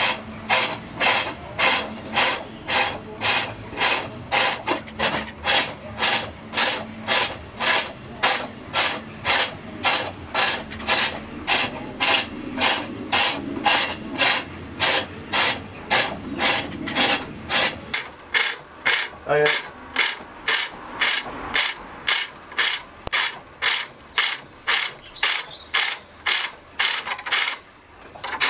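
Pole lathe bowl turning: a hand-held turning tool cuts the wooden bowl blank in short, even strokes, about two a second, as the treadle spins the work back and forth.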